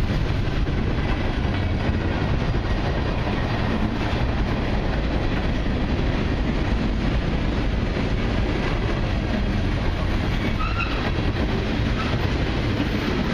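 Long mixed freight train's cars rolling past close by: a steady rumble and clatter of steel wheels on the rails.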